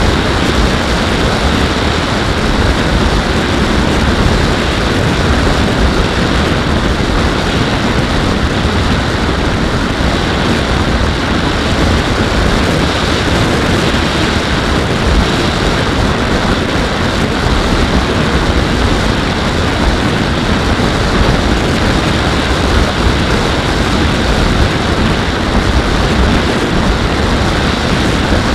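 Steady rush of airflow and propeller noise from a Skywalker X-8 electric pusher flying wing in cruise, picked up by the camera on board. It is an even, unbroken roar with no clear motor tone standing out.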